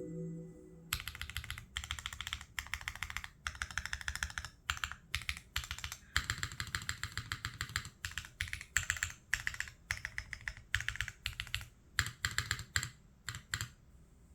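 Neo60 Core custom mechanical keyboard in an O-ring mount, no foam, aluminium plate, with Gateron Smoothie switches and GMK keycaps, being typed on in a sound test: fast runs of clacky keystrokes in bursts with short pauses, starting about a second in.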